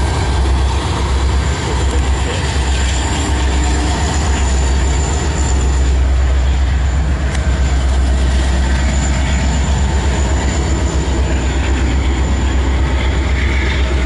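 CN manifest freight train's railcars rolling past at a crossing: a steady, loud noise of steel wheels on rail, unbroken throughout.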